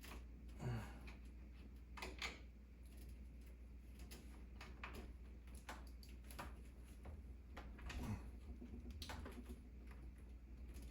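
Scattered small clicks and taps from computer parts being handled during a PC assembly, about half a dozen spread irregularly over a low steady hum.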